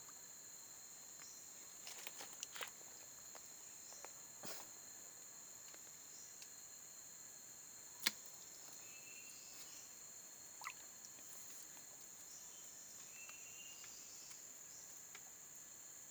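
Faint, steady high-pitched drone of forest insects such as crickets, with a few scattered clicks and taps; one sharp click about halfway through is the loudest, and short chirps come and go in the second half.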